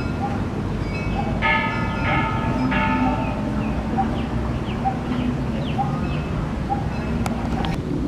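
A few bell-like chimes ringing about one and a half to three seconds in, over a steady low rumble, with small chirps and a couple of sharp clicks near the end.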